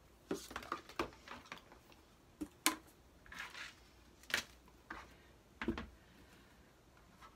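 Sewing scissors and tools being picked up and set down on a cutting mat: a scatter of light clicks and knocks, with a soft sliding rustle about three seconds in.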